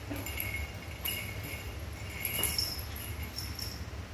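A small jingle bell jingling in short bursts, several times, as kittens tussle and run about. A steady low hum lies beneath.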